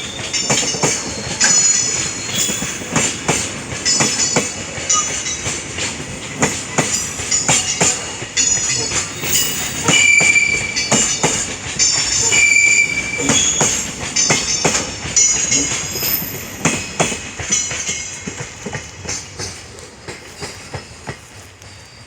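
Freight train wagons rolling past, wheels clacking rapidly over rail joints with short high-pitched wheel squeals, the sound fading away over the last several seconds as the train recedes.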